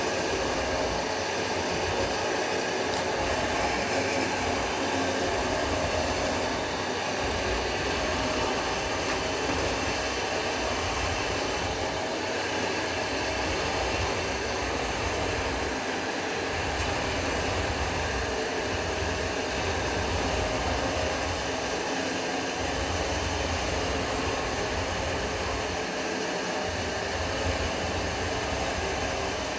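A mixing machine running steadily as it churns aged waste cotton mushroom-growing substrate with spawn, a constant, unbroken mechanical noise.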